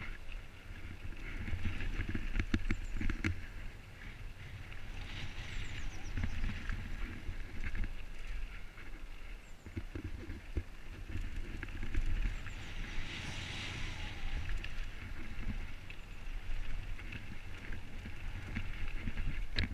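Mountain bike riding down a loose gravel trail: tyres rolling over stones with many small clicks and knocks as the bike rattles over bumps, and wind buffeting the microphone as a heavy low rumble.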